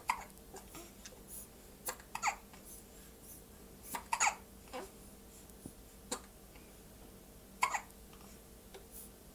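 Hiccups: short, sharp catches of breath with a brief squeak, recurring every second or two over a quiet background, some coming as quick doubles a fraction of a second apart.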